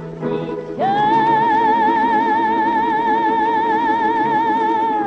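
A woman's singing voice holds one long high final note with a wide vibrato, starting about a second in and dipping at the very end, over an accompaniment of domras and accordion. It is the closing note of a Russian folk song on an old recording that has no high treble.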